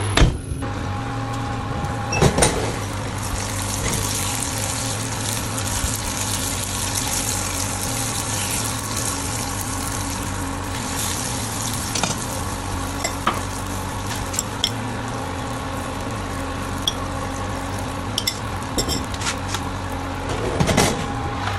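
Chicken leg quarters sizzling in their fat in a hot roasting dish, a steady crackling hiss over a low hum. Scattered clicks of metal tongs against the dish as the pieces are turned, and a knock near the start.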